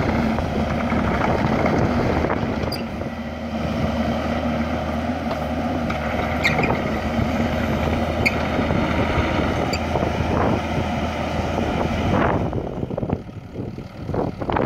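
Kubota KX121-3 mini excavator's diesel engine running steadily while the machine swings and works its boom and bucket. About twelve seconds in, the engine sound falls away.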